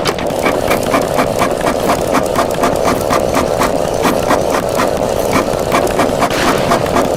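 A machine running steadily, with a rapid regular clatter of about five clicks a second over a constant drone.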